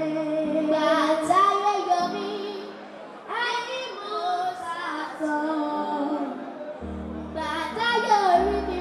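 Two young girls singing a song into microphones, in phrases with long held notes, over sustained backing chords; a low bass comes in about seven seconds in.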